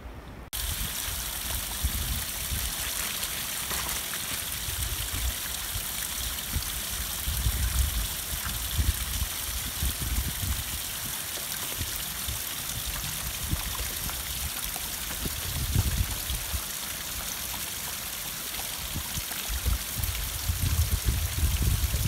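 A small mountain stream trickling over rock, a steady watery hiss, with irregular low rumbles of wind on the microphone.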